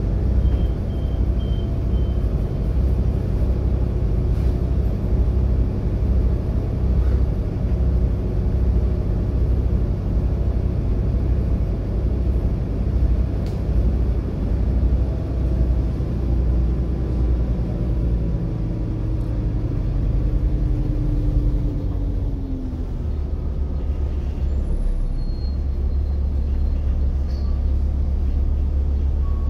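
Volvo B7TL double-decker bus running, heard from inside, with its six-cylinder diesel's low drone; a whine falls in pitch as the bus slows, about two-thirds of the way through, after which a steady low drone settles in.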